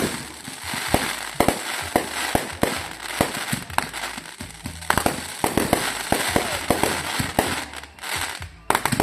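Fireworks going off in quick succession: many sharp bangs, several a second, over a continuous crackle.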